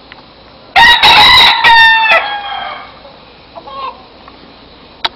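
A gamecock crowing once, loud and close: a call of about two seconds that trails off lower at its end. A brief, softer call follows about a second later.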